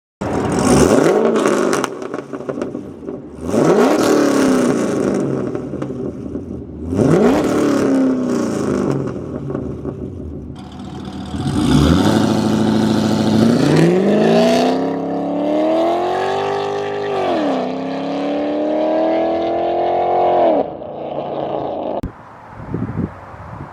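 C6 Corvette V8 with long-tube headers, X-pipe and muffler delete: three quick throttle blips, each rising sharply and falling away, then a long hard acceleration whose pitch climbs, dips at an automatic upshift partway through, climbs again, and drops away near the end.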